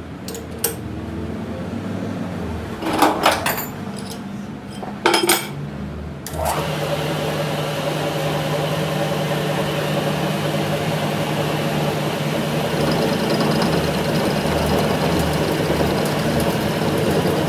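A few sharp metal clinks over a low workshop hum, then a metalworking machine starts up about six seconds in and runs steadily.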